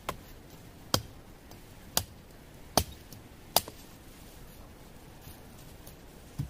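A blade chopping at a wooden pole: five sharp chops, about one a second, then a duller thump near the end.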